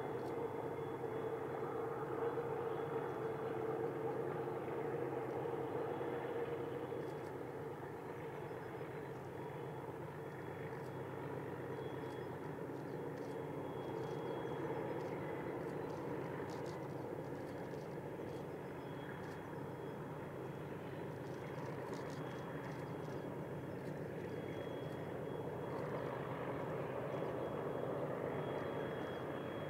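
ALCO DL 537 diesel locomotive engine running steadily, an even mechanical drone with faint light clicks over it in the middle.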